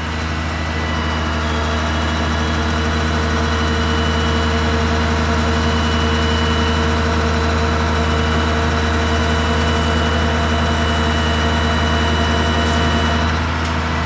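An engine idling steadily: a low hum that holds one pitch, with a few faint steady higher tones above it.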